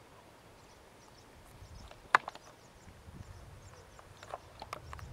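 Handheld camera being moved: a sharp click about two seconds in, then scattered clicks and a low rustling rumble.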